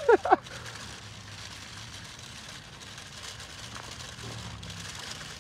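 Small electric motor and gearbox of a JJRC Q69 1:18 six-wheel RC crawler truck running as it crawls over loose gravel, a low whir under a steady hiss.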